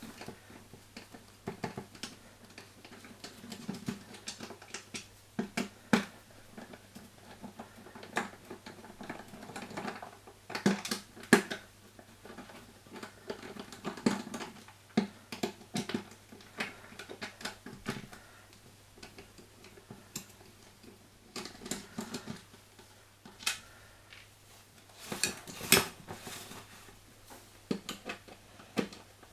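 Scattered clicks, taps and knocks of the plastic and metal parts of a washing machine door being handled and taken apart, with a cluster of louder clicks near the end.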